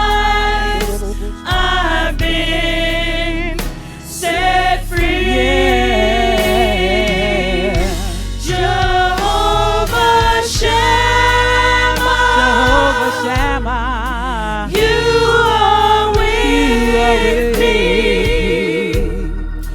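Live gospel worship music: a choir and lead singers hold long notes with vibrato over a band, with a steady bass and regular drum hits.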